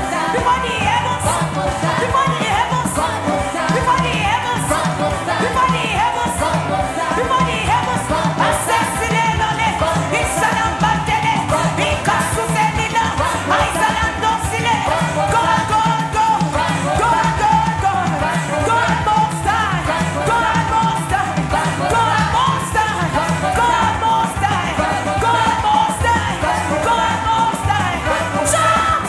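Worship music: voices singing over a band with a steady beat.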